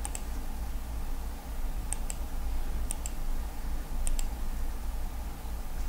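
Computer mouse clicking about six times, some clicks in quick pairs, over a steady low hum.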